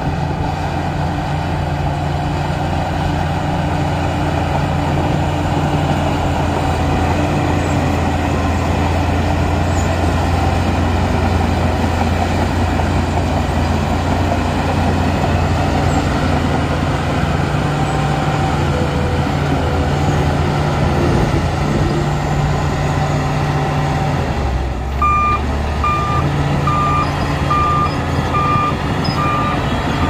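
Shantui DH17 crawler bulldozer's diesel engine running steadily while it works. About 25 seconds in, a reversing alarm starts, a high beep repeating a bit more than once a second.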